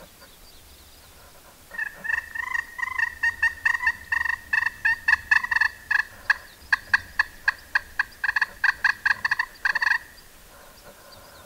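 Turkey call worked by a hunter, running a loud series of hen yelps that starts a bit under two seconds in and quickens into short sharp cutting notes, about four a second, stopping abruptly about ten seconds in. It imitates a hen turkey to draw in a gobbler.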